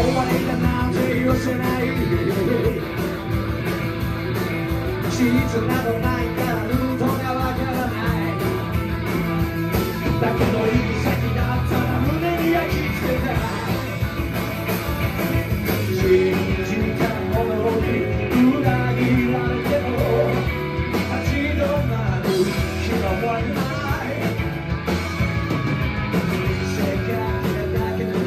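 Live rock and roll band playing loudly: hollow-body electric guitars over an upright double bass, with no break in the music.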